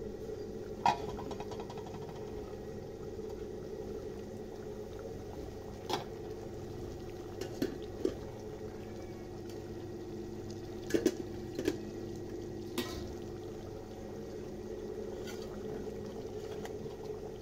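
Potato-and-meat curry bubbling at the boil in an aluminium pot over a steady hum, with a handful of sharp metal clicks of the ladle or lid against the pot.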